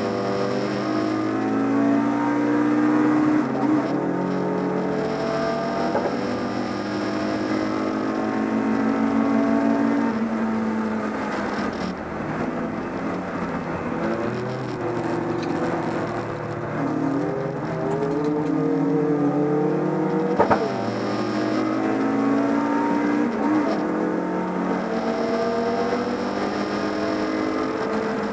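BMW 318is race car's four-cylinder engine heard from inside the cabin at racing speed, its note repeatedly climbing under acceleration and dropping back through gear changes and braking, over road noise. About twenty seconds in there is one sharp crack.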